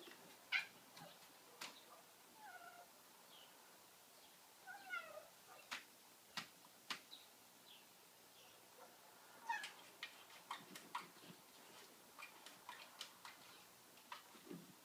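Tabby cat making short, faint chirps and meows, several falling in pitch, among scattered sharp clicks.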